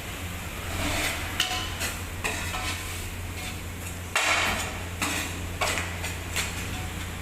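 Metal cookware knocking and scraping: a utensil strikes and scrapes against a pan several times, loudest about four seconds in, over a steady low hum.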